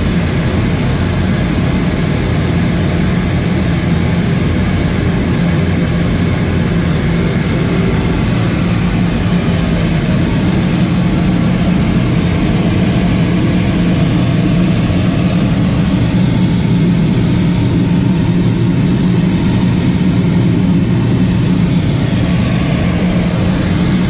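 Gas power burner of a Pacific Steel fire-tube steam boiler firing on its main flame just after lighting: a loud, steady rush of burner fan and flame with a low hum.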